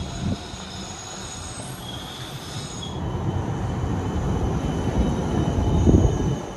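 A GVB Siemens Combino tram rolling past close by on street rails. Thin high steady tones come first, then a low rumble of wheels on rail that swells to its loudest about six seconds in as the tram goes by.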